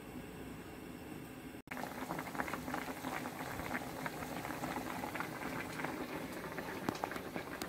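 Water boiling hard in a metal wok with baby corn and squash in it: a dense, continuous bubbling crackle of small pops. It starts after a brief cut about one and a half seconds in; before that there is only a faint steady hiss.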